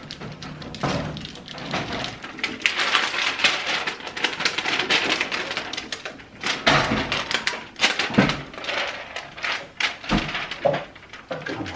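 Vinyl window clings and their backing sheet crackling and rustling as they are handled, peeled and pressed onto window glass, with light taps of hands on the glass.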